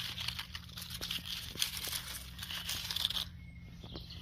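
Close crinkling and rustling handling noise: a hand and jacket sleeve rubbing right at the phone's microphone for about three seconds, stopping suddenly.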